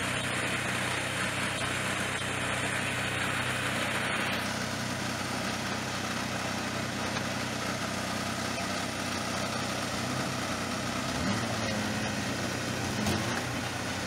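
Engine of a homemade backhoe digger running steadily while the arm lifts a heavy log. A higher hiss over it stops about four seconds in.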